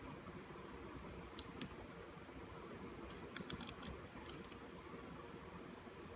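Light clicks from a gauge stepper motor being handled and seated into an instrument cluster's circuit board: two single clicks about a second and a half in, then a quick run of clicks a little past halfway, over faint room noise.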